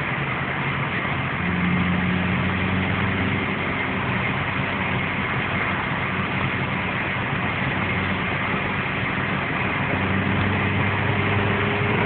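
Inside a moving car's cabin: steady engine drone and road noise, the low engine hum growing a little louder about a second and a half in.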